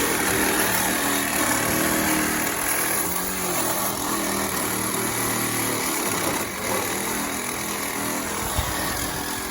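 Cordless power saw running steadily as it cuts through the metal of a scooter's rear shock spring, its blades worn nearly toothless.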